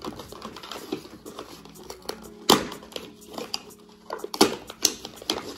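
Paper and cardboard gift packaging being handled and rustled, with a few sharp clicks, the two loudest about two and a half seconds in and again near four and a half seconds.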